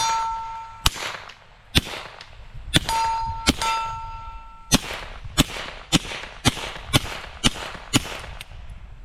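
Suppressed FN 509 Tactical 9mm pistol firing about a dozen subsonic 147-grain rounds, each shot a sharp crack. Several early hits leave a steel target ringing with a clear tone for most of a second, and the shots come faster in the second half.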